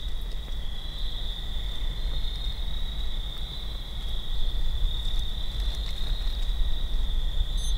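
Steady chorus of night insects trilling in one high, unbroken band, with a low rumble underneath.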